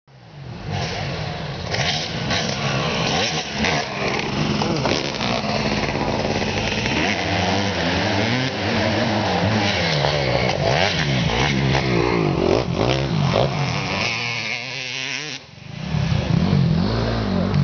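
Motorcycle engine running and revving, its pitch rising and falling repeatedly, with a brief dip in level about fifteen seconds in.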